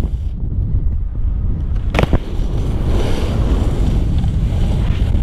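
Wind buffeting a moving camera's microphone as a snowboard slides over groomed snow. There is a sharp knock about two seconds in, and a brighter hiss of the board on the snow around three seconds.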